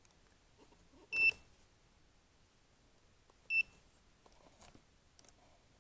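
A digital meter beeping twice: two short high beeps about two and a half seconds apart, with faint handling clicks between.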